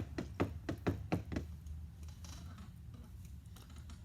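Rapid, evenly spaced knocking or tapping, about three to four knocks a second, that stops about a second and a half in, over a steady low hum.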